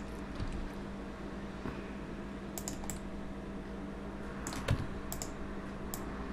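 Computer keyboard keys pressed a handful of separate times, the loudest click about three quarters of the way in, over a steady low hum.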